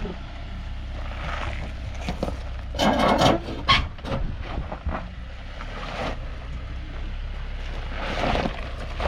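Jeep crawling slowly over a rocky trail, with a steady low rumble. A cluster of crunching, scraping knocks comes about three seconds in, and another rise comes near the end.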